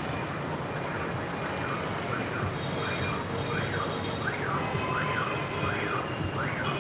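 Electronic siren, likely a car alarm, sweeping up and down in pitch about twice a second, starting about a second in, over a steady hum of street traffic.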